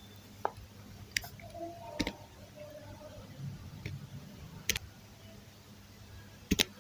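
Faint, sharp taps at irregular intervals, about five in all with two close together near the end: fingertips tapping a tablet touchscreen while picking a date in a calendar pop-up.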